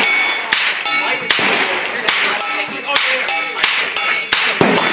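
A string of suppressed 9mm shots from an AR-15 carbine with an integral suppressor, fired in quick succession at about two to three shots a second. Each shot is a sharp crack with a short ring after it, and a metallic tone lingers after some of them.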